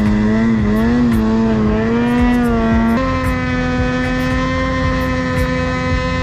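Snowmobile engine running at high revs under load while ploughing through deep powder. The pitch wavers up and down for the first few seconds, then steps up about three seconds in and holds steady.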